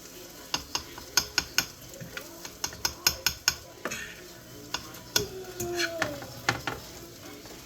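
A utensil tapping and scraping against a skillet while eggs are stirred, with a quick run of sharp clicks in the first few seconds and more taps later, over a faint sizzle.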